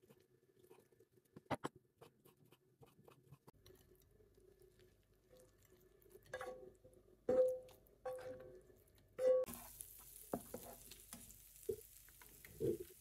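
A knife tapping lightly on a wooden cutting board while slicing sausages. Then a metal spatula scraping and clinking against a ceramic plate and the pan rim as scrambled eggs are slid off a frying pan, with several sharp ringing knocks. About two-thirds of the way through, sausage pieces start sizzling in butter in a frying pan, a steady hiss with a few knocks.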